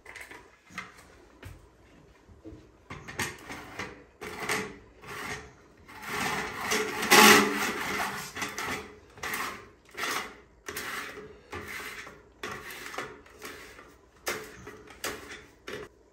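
Square metal shower-drain grate scraping and clunking as it is pressed and worked by hand into the drain body: irregular grating and rubbing strokes, loudest about seven seconds in.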